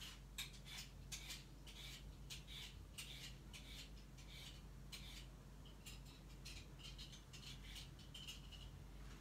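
Cucumber being peeled by hand: faint, quick scraping strokes, about two or three a second.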